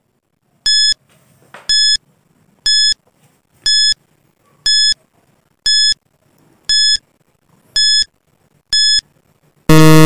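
Countdown timer sound effect: nine short, high-pitched beeps, one a second, then a louder, lower buzzer lasting under a second near the end, sounding as the count reaches zero and time is up.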